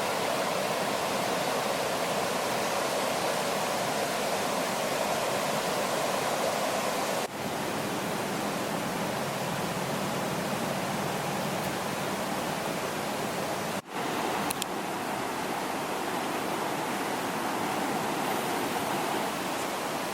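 Steady rushing of running water, an even hiss with no rhythm, broken by two brief cuts about seven and fourteen seconds in.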